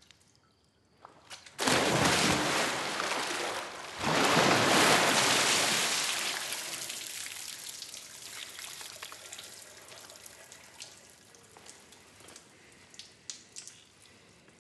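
Pool water splashing and pouring down onto a tiled pool deck: a sudden rush about a second and a half in, a second, stronger surge about four seconds in, then dripping and trickling that slowly dies away.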